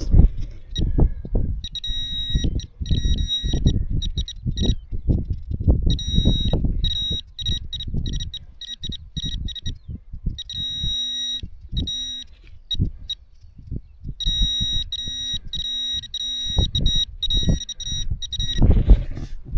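Metal detector beeping in repeated bursts of pulsed, high-pitched tones as it is passed over soil, signalling a very small metal target that turns out to be a small coin. Short knocks and scrapes of soil being dug and handled run underneath.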